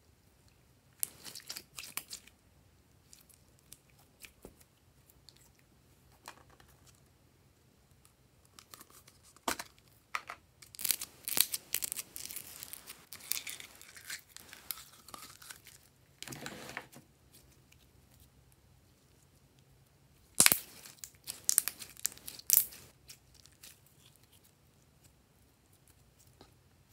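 Glossy slime being stretched, squeezed and pulled out of a plastic cup by hand, making sticky crackling and popping in bursts. There is a burst about a second in, a longer stretch through the middle and another a few seconds before the end, with quiet between.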